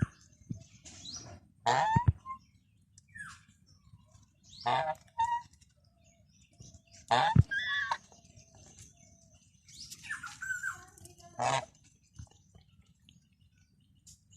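Geese honking in short separate calls, a second or few apart with quiet between; the loudest about seven seconds in.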